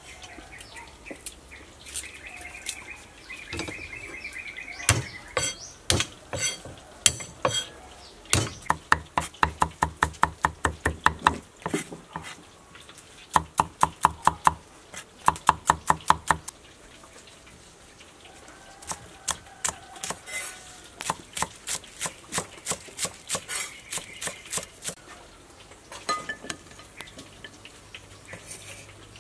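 Cleaver chopping on a thick wooden chopping block, mincing garlic, ginger and shallots. Sharp knocks come in fast runs of several a second, loudest about halfway through, with a second, lighter run after a short pause.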